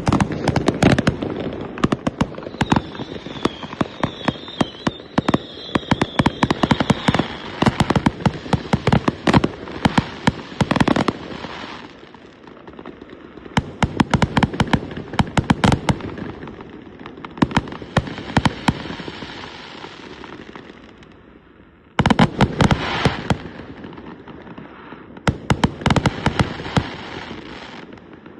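Aerial fireworks display: rapid volleys of sharp bangs and crackling, with a warbling whistle a few seconds in. The bangs ease off in short lulls and start again abruptly at full strength.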